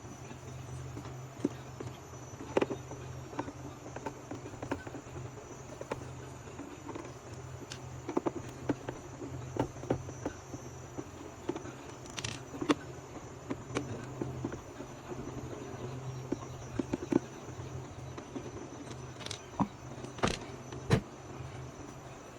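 Scattered clicks and knocks of hands and a screwdriver working on the plastic housing of a Philips GC8616 steam generator iron as it is taken apart. A steady low hum and a faint high whine sit underneath.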